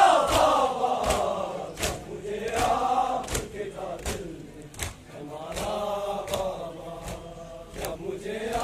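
A crowd of men chanting a Muharram noha (mourning lament) in unison, with sharp slaps of hands beating on chests (matam) keeping time about every three-quarters of a second. The chant is loudest at the start, ebbs around the middle and swells again near the end.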